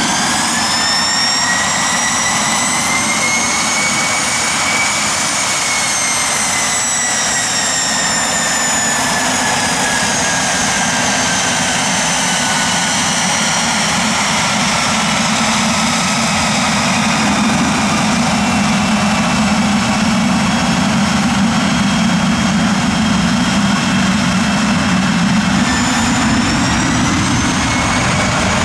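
Pilatus PC-24's twin Williams FJ44-4A turbofan engines running at taxi power: a steady loud jet rush with a high whine. The whine rises over the first few seconds, slowly falls, then rises again near the end.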